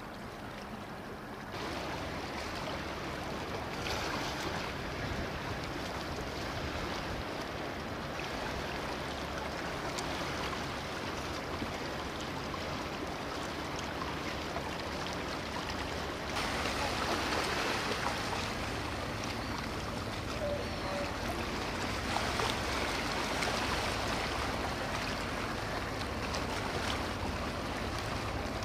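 A motor launch's engine running steadily as it cruises past, under a steady wash of water and wind noise. The sound steps up in level at about a second and a half and again about halfway through.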